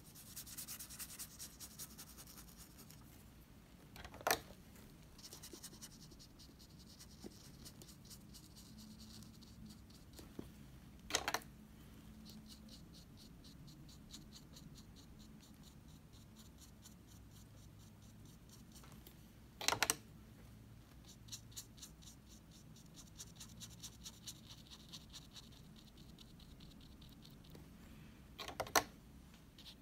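Small watercolor brush stroking water across watercolor paper, a faint scratchy swish that comes and goes, wetting the raw umber ink lines so they melt. Four short sharp clicks, about eight seconds apart, are the loudest sounds.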